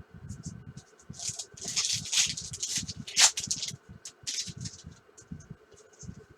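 Baseball trading cards and foil pack wrappers being handled: rustling and sliding, loudest in the middle, with a sharp snap about three seconds in and light thuds on the table.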